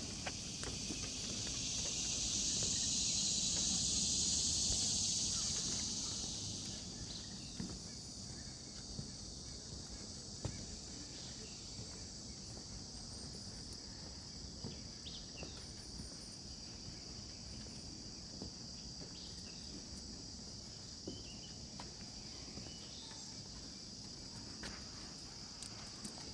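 Insects droning steadily in a high, even chorus, with one louder buzz that swells up over the first few seconds and fades away after about six seconds.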